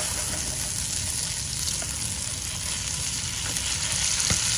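Squid rings, carrot and long beans sizzling steadily as they are stir-fried in a wok, with a light scrape of the spatula against the pan near the end.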